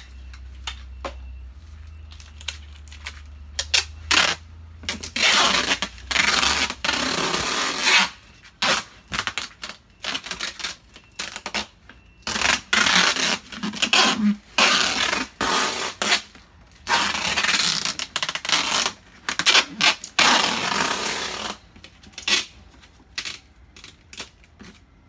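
Packing tape being pulled off the roll of a handheld tape dispenser and pressed onto a cardboard box. It comes in repeated rasping strips of one to three seconds each, with short clicks and knocks between them.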